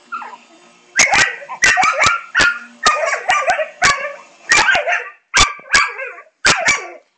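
Dog barking in a rapid, excited series, about two to three barks a second, starting about a second in: barking at a lawn mower it wants to bite.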